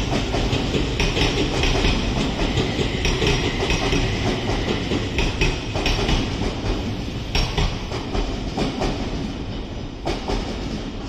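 Odakyu Line electric commuter train running past, its wheels clacking over the rail joints in a repeating clickety-clack over a steady rumble, growing a little quieter over the last few seconds as it draws away.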